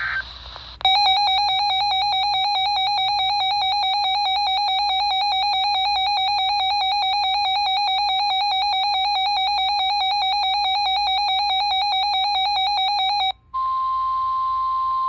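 Weather radio's warbling alert alarm, a fast two-pitch beep sounding for about twelve seconds, alerting to a severe thunderstorm warning. It cuts off near the end, and the broadcast's steady warning alarm tone takes over for the last second and a half.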